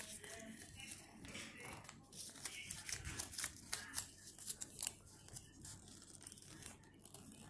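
A sheet of origami paper being folded and creased by hand: irregular rustling and crinkling with many small crackles.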